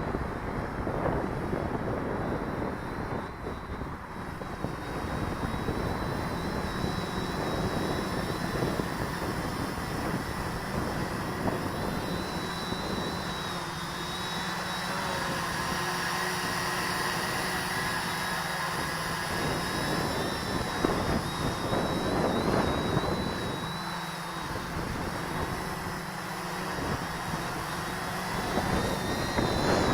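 Quadcopter motors and propellers whining steadily, their pitch wavering slightly, over a constant rush of wind on the microphone.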